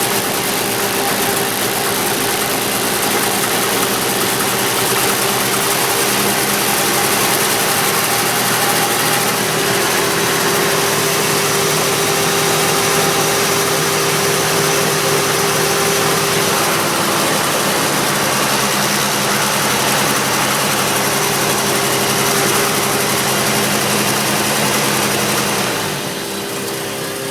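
Turbocharged Chevrolet S-10 pickup engine idling steadily, the engine the owner is recording for a knock. Near the end the sound drops a little and some of its lower tones fall away.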